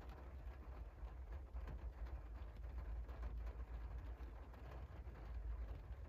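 Cold rain falling on a window pane, faint and steady, with many small drop ticks over a low steady rumble.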